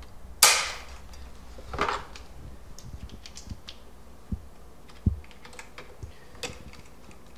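Irregular clicks and knocks of a screwdriver and locking pliers on the metal bolts and nuts fastening a trunk box to a scooter's rear rack. The two loudest knocks come about half a second and about two seconds in, with lighter clicks after.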